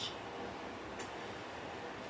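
Steady background hiss with two short ticks, one at the start and a sharper one about a second later.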